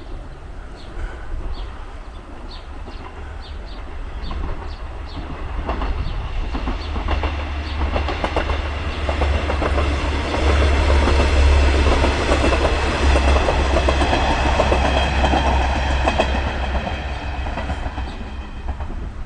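A JR Shikoku Tokushima Line diesel railcar train passing, with engine rumble and wheel clatter. It grows louder, is loudest about ten to fourteen seconds in, then eases off a little.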